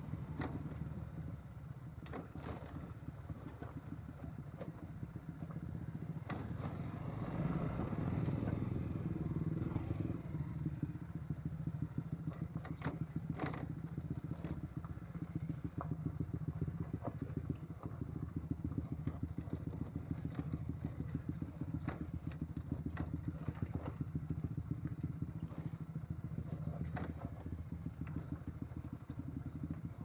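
Honda CBR150R's single-cylinder engine running steadily, with frequent knocks and rattles as the bike jolts over a rocky track.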